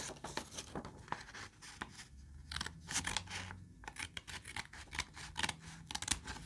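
Small red-handled scissors snipping through a sheet of paper, a steady run of short cuts one after another.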